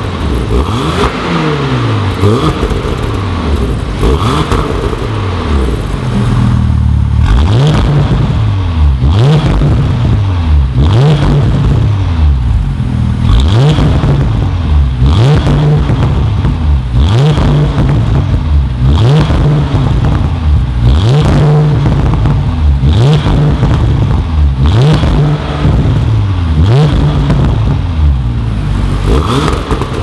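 Porsche Panamera 4's twin-turbo V6, breathing through an aftermarket Armytrix valved exhaust, revved repeatedly while standing still. Each blip rises sharply and falls back, coming about once a second from about seven seconds in.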